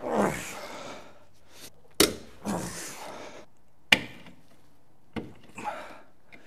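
Metal tool knocking and prying at the rear axle hub of a classic VW Beetle swing axle: three sharp metallic clacks about two seconds apart, each followed by a brief scraping rattle as the screwdriver levers at the parts on the axle shaft.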